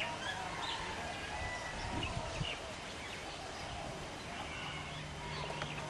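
Quiet outdoor background with scattered faint chirps. A steady low hum comes in near the end.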